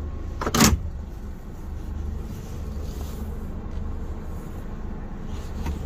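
Scania truck's diesel engine running with a steady low rumble, heard from inside the cab as the truck creeps up to couple its trailer, with one short, sharp noise about half a second in.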